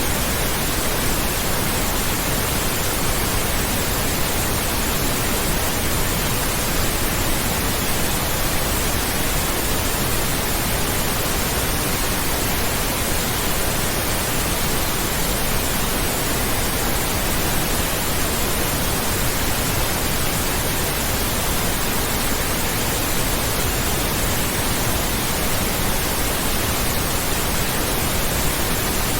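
Pink noise: a steady, even hiss that does not change.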